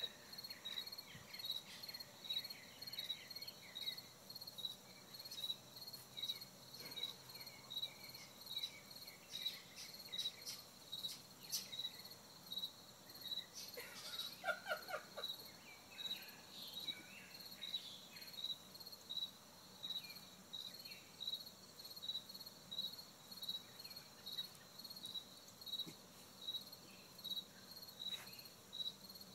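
Insects chirping in a steady, even rhythm, about two high chirps a second, with a brief faint call about fourteen seconds in.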